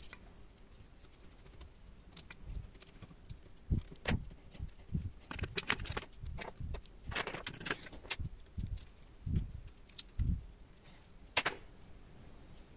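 Irregular metallic clicks, clinks and knocks as a small screwdriver and fingers work on the metal housing and circuit board of a disassembled encoder.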